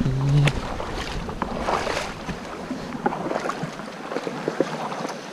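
Creek water running over rocks: a steady rushing, with scattered small clicks and splashes throughout and a brief low tone right at the start.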